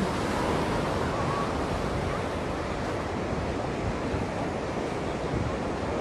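Ocean surf washing on the beach, with wind buffeting the microphone: a steady rushing noise.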